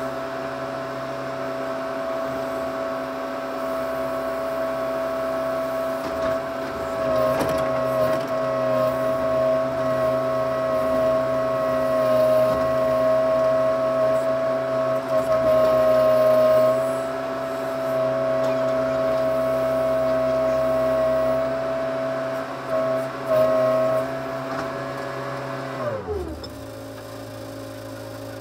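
Case 580C backhoe engine running at steady working throttle while the boom is worked. About 26 seconds in, the pitch falls sharply and the engine settles to a lower, quieter idle.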